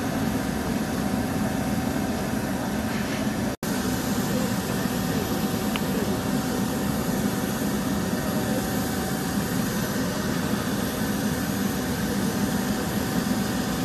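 Steady whine and rumble of a parked Bombardier Global Express business jet running at idle: one constant tone over a low hum. The sound cuts out for an instant about three and a half seconds in.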